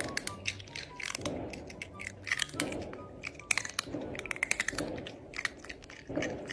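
Crunchy chewing and biting, a series of noisy crackling mouthfuls coming roughly once a second, over faint low music.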